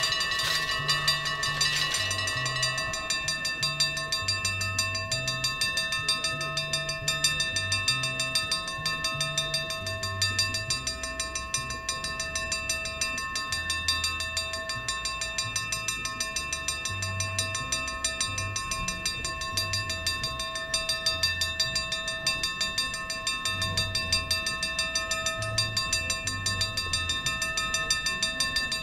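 Dutch level-crossing bell ringing rapidly and without a break while the warning lights flash. In the first couple of seconds there are a few sharp clacks as the barrier booms come down.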